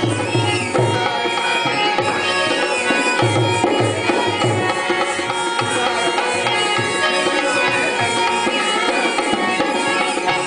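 Dholak barrel drum played by hand in a fast folk rhythm, its deep bass strokes repeating, under a man's singing voice: live Rajasthani folk music.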